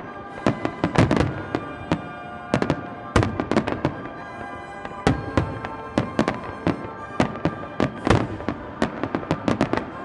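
Aerial fireworks bursting in a rapid barrage of sharp bangs and crackles, several a second, with a brief thinning about four seconds in, over music played along with the show.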